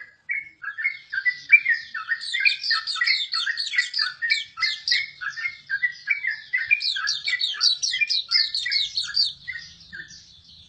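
Pleci auriventer (Hume's white-eye) singing a long, fast warbling song of quick, high chirping notes, which stops shortly before the end.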